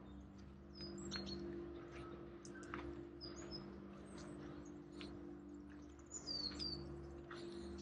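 Small birds chirping in scattered short, high calls among trees, over a faint steady low hum.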